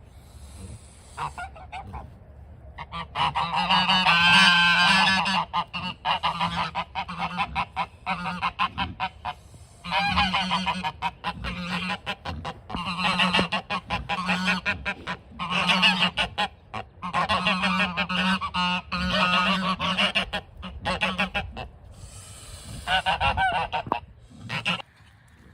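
A flock of geese honking together in rapid, overlapping calls, in several loud bouts with short lulls between them, starting a few seconds in.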